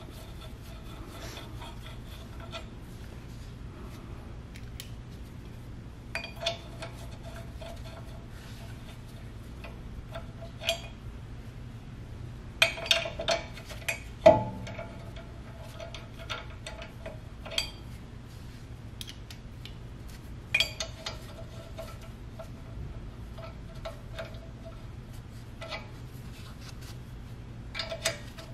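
Hand ratchet clicking in short runs as the nuts holding a wheel spacer are run down and tightened on the front hub studs, with small metal clinks of nuts and socket. The loudest sound is a single sharper metal knock about halfway through.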